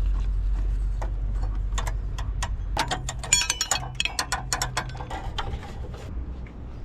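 Rapid metallic clicks and clinks from a wrench working the drive-belt tensioner as the serpentine belt is taken off, densest with a ringing metal sound about three to four and a half seconds in. A steady low hum runs underneath.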